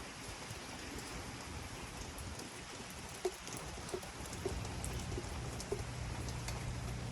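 Steady rain falling, an even hiss with scattered drops and drips ticking through it.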